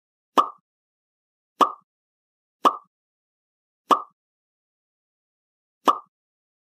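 A short plop sound effect, five times at uneven intervals, each a sharp pop that dies away quickly.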